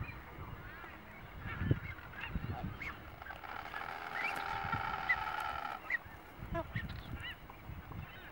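Nazca boobies calling during the attack on the juvenile: harsh honking, with one long drawn-out call a little after halfway and short rising notes scattered throughout. A few low thumps also come from the scuffle.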